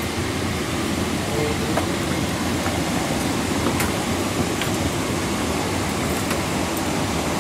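Steady rush of a Boeing 777 cabin's air conditioning during boarding, with a few faint clicks.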